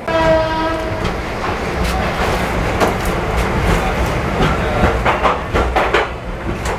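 A train horn sounds one steady note for about a second. Then a passenger train rolls out with a continuous rumble and irregular wheel clatter over rail joints and points, heard from an open coach doorway.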